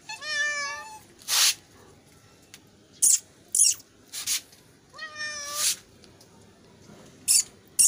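Hungry cats meowing for food: two drawn-out meows, one right at the start and one about five seconds in, with several short, sharp hissy noises in between.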